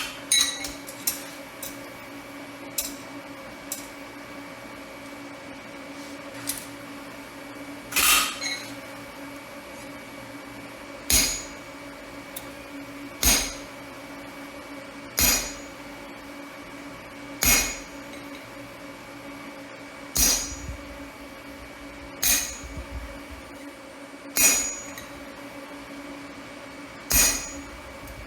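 Single hammer blows on metal, spaced about two seconds apart from about a third of the way in, after a few light clicks and one earlier strike. A steady hum runs underneath.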